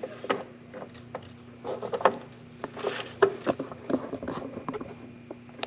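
Gloved hand fumbling with a headlight bulb's wiring plug and the plastic parts behind the headlight: scattered light clicks, taps and rubbing, over a steady low hum.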